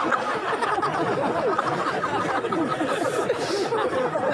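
A large crowd of men laughing and chattering together, many voices overlapping, with a brief hiss about three seconds in.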